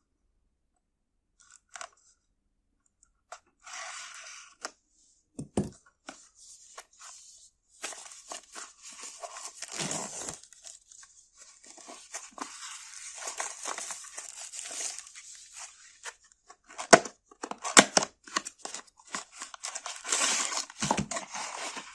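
A product box and its packaging being opened by hand: rustling and tearing, with scattered sharp clicks and knocks. The rustling is steadiest midway through, and there is a cluster of louder clicks near the end.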